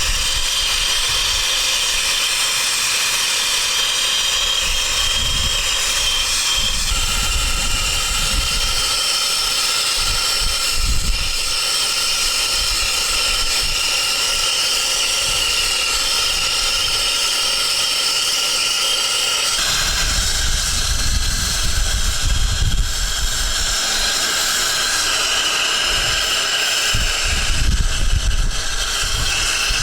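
Gas brazing torch flame hissing steadily as it heats air-conditioner pipework, with low rumbling surges from the flame. The whistling tone over the hiss changes pitch abruptly about 7 and 20 seconds in.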